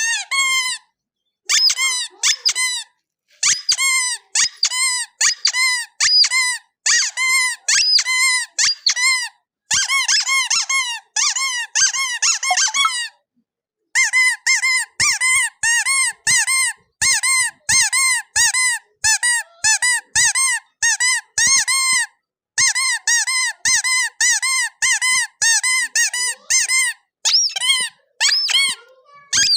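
Rubber squeeze toy squeaking over and over: short, shrill squeaks that each rise and fall in pitch, about two a second, in runs broken by brief pauses.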